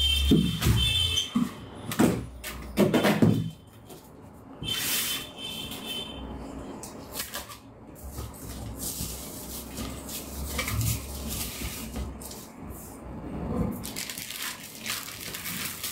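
Cardboard shipping carton being handled and opened. There are a few knocks in the first few seconds, then scraping and rustling as the plastic packing strap is pulled off and the flaps are opened onto a plastic-wrapped item.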